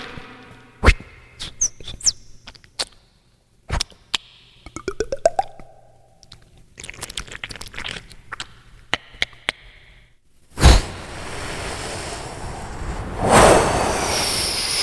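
Beatboxer's mouth sound effects: a run of sharp clicks and knocks, a quick rising sweep about five seconds in, then a loud, sustained noisy rush from about ten seconds on.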